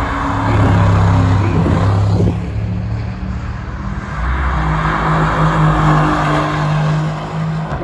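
Sports cars' engines running hard as cars pass at speed on a race track, one after another. In the second half one car's engine holds a steady, loud high note.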